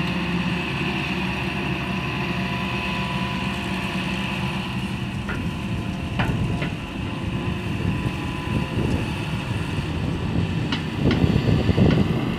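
Hitachi crawler excavator's diesel engine running under load with a steady high whine as it lifts and swings a full bucket of soil. A few short clicks sound midway and near the end, and the engine gets louder in the last second or so.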